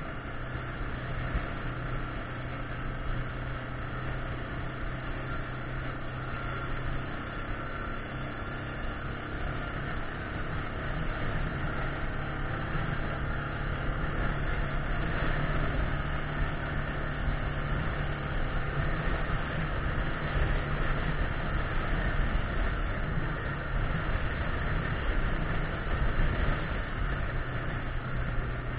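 Yamaha Grizzly 600 ATV's single-cylinder engine running steadily under way on a gravel trail, mixed with wind noise and small rattles from the rough ground. About ten seconds in, the engine note rises a little and grows louder as it picks up speed.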